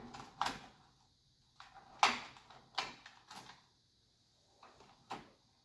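Wires being handled and tucked into an open fluorescent light fixture: about five sharp clicks and knocks with some rustling, the loudest about two seconds in.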